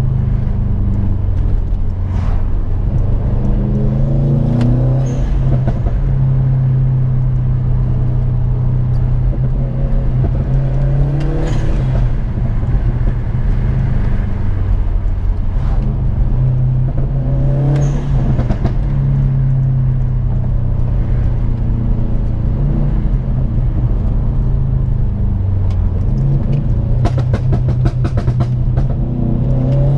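Subaru WRX STI's turbocharged flat-four engine heard from inside the cabin while driving, a steady engine note with the revs rising several times as the car accelerates. A quick run of sharp clicks comes near the end.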